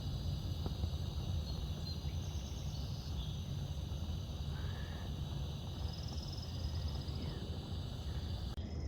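Hand-held propane torch flame running with a steady low rush as it lights the fuel in a bee smoker. Steady insect drone and a few short bird chirps sound in the background.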